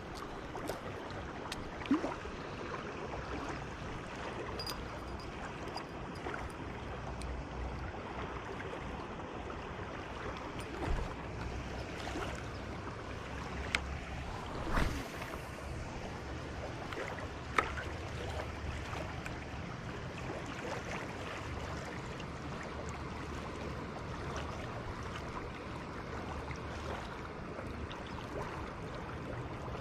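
River current rippling over shallow riffles, a steady rush of moving water, broken by a few brief knocks and a rustle about halfway through.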